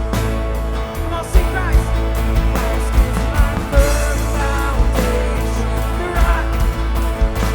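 Live worship band music from a full band, with drums and bass under guitar and keys, playing steadily.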